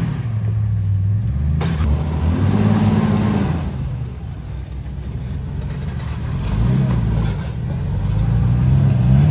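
Rock-crawling off-road vehicle's engine running at low speed and revving up and easing off about three times as it climbs over boulders.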